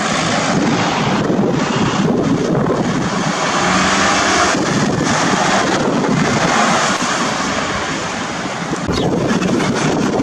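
Loud wind buffeting the microphone, mixed with the rush of a vehicle driving past on the road.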